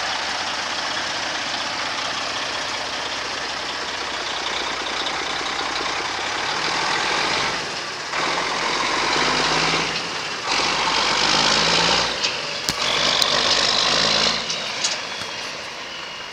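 1993 International 9400 dump truck's diesel engine running steadily, then pulling away and accelerating through several gears, the engine note rising in each gear and dipping briefly at each shift. It grows quieter near the end as the truck moves off.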